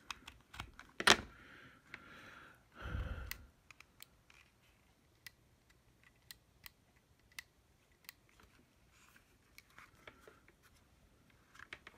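Scattered small clicks and taps of a plastic cordless soldering iron and a USB cable being handled, with one sharper click about a second in and a short rustle around three seconds in.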